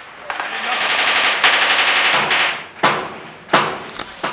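Airsoft guns firing full-auto: a long rapid burst of about two seconds, then three separate sharp bangs about two-thirds of a second apart.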